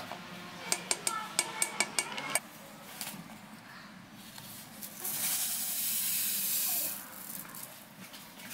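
A plastic measuring spoon tapped about eight times in quick succession against a saucepan, knocking off custard powder. About five seconds in, a steady hiss lasting some two seconds as vanilla sugar pours from a paper sachet into the milk.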